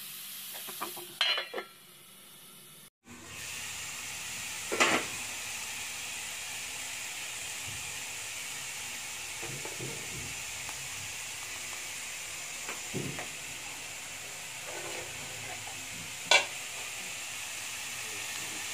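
Sliced ampalaya (bitter gourd) sizzling steadily in a frying pan over low heat, so that mostly steam cooks it. A few sharp clinks of a spatula on the pan stand out, and the sound cuts out briefly about three seconds in.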